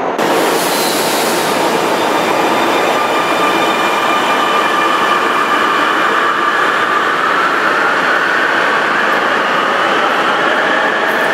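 Metro train pulling out of an underground station: a steady rumble of wheels on the rails with a high whine over it.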